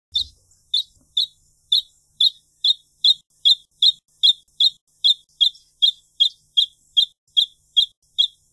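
Wrentit singing: a long, evenly paced series of short, clear notes, about two and a half a second, steady in pitch.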